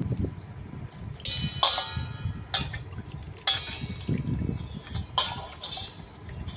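Water splashing and sloshing in a stainless-steel bowl as bitter gourds are rubbed and swished by hand to wash them, in several separate splashes from about a second in.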